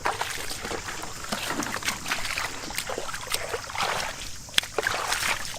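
Shallow floodwater sloshing and splashing irregularly as someone wades and works through it by hand.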